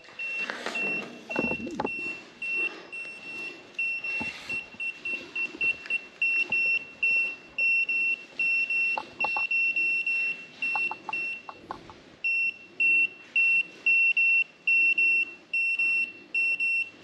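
Handheld portable sonar fish finder's alert beeping: a high electronic beep repeated about twice a second, with a short break about twelve seconds in. The beeping is the unit's fish alarm, signalling fish picked up below the sensor.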